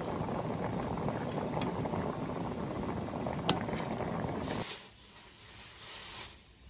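A pot of spiced braising liquid with quail eggs boiling hard, a steady dense bubbling with one sharp click about three and a half seconds in. The bubbling cuts off suddenly just after four and a half seconds, leaving a much quieter background with faint rustling.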